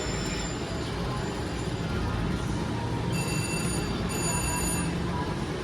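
Slot machine's electronic chimes ringing out twice, about three seconds in and again a second later, over the steady din of a casino floor.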